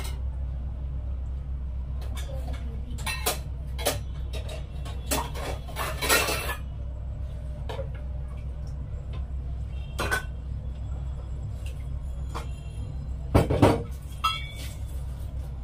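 Dishes and utensils clinking and knocking irregularly as food is handled, with the loudest clatters about six seconds in and near the end, over a steady low hum.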